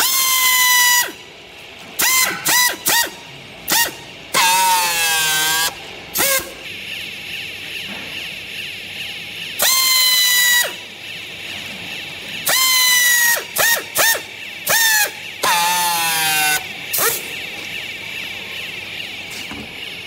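Background music: a high melodic line of held notes and wavering, downward-sliding notes, with a phrase that repeats.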